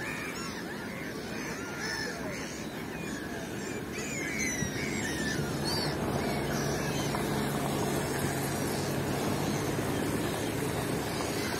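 Waterfowl on the river calling, many short calls overlapping in the first few seconds, over a steady background noise. From about five seconds in, a vehicle engine's low, steady hum comes up and holds to the end.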